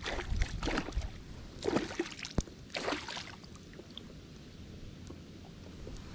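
A hooked pike thrashing and splashing at the water's surface, with several splashes in the first three seconds before it goes quieter.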